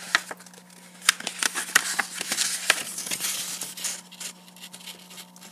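A sheet of paper being folded and creased by hand close to the microphone: a string of sharp crinkling clicks, with a denser stretch of paper rustling in the middle.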